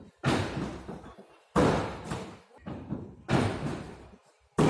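Four heavy thuds about a second and a half apart, each dying away over about half a second in a large, echoing hall: a gymnast's body striking sprung gym equipment.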